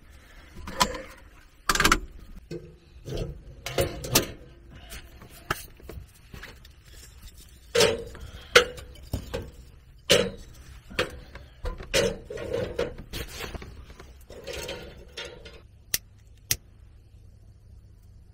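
Thin wooden kindling sticks knocking, clattering and scraping as they are laid one by one into a small steel box wood stove, in irregular knocks. Two sharp clicks come near the end, as a lighter is struck to light the kindling.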